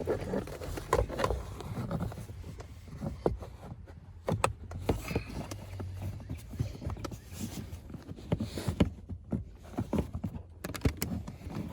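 Plastic under-dash trim panel being worked into place by hand: scattered irregular clicks, taps and scrapes of hard plastic, over a low steady hum.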